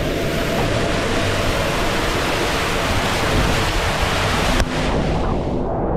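Loud rushing, splashing water close to the microphone, a steady full hiss that breaks off sharply about four and a half seconds in, leaving a duller rush.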